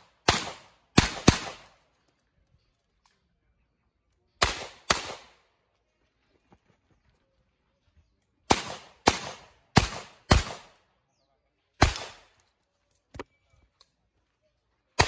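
Revolver firing through a practical-shooting stage: about ten loud shots in bunches of two to four, some well under a second apart, with pauses of a few seconds between bunches. Each shot has a short echoing tail.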